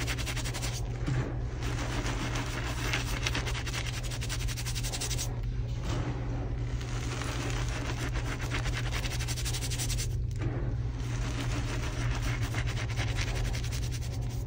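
Hands squeezing and rubbing handfuls of crushed gym chalk powder, a dense crunchy crackle that breaks off briefly three times.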